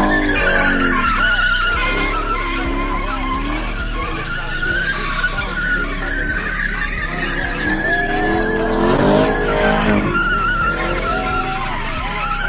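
Chevrolet Camaro doing donuts. Its tyres squeal steadily as they slide on the concrete while the engine revs rise and fall.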